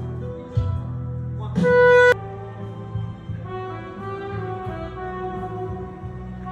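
Background music: a melody over a steady bass line, with one loud held note about two seconds in that cuts off suddenly.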